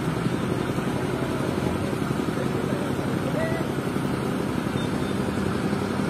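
Heavy diesel engine of a mobile crane running steadily under a girder lift, a continuous low rumble.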